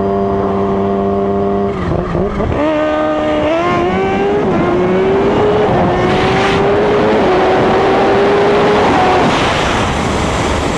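Kawasaki Ninja H2's supercharged inline-four engine holding a steady note, then, about two seconds in, accelerating hard: the pitch climbs and dips briefly at each upshift. Wind rush over the moving bike grows louder as the speed builds.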